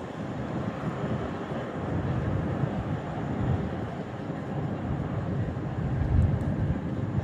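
Jet noise from a Boeing 777X's GE9X turbofan engines as the airliner flies past: a low, rushing rumble that swells and fades, loudest about six seconds in.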